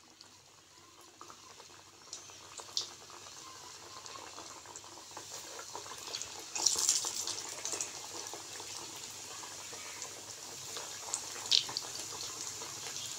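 Yeast donut rings deep-frying in hot oil: a steady sizzle and bubbling that grows louder as more rings go in, with a few sharp spatters.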